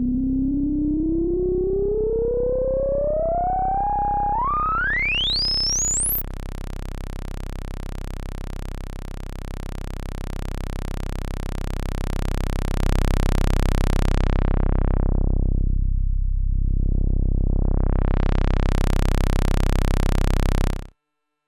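Roland System-500 analogue modular synthesizer. An oscillator tone glides steadily up in pitch until it is too high to hear, about six seconds in. Then a low, buzzy tone with many harmonics holds steady while its filter is swept closed to a dull, muffled sound and opened again, before the sound cuts off suddenly near the end.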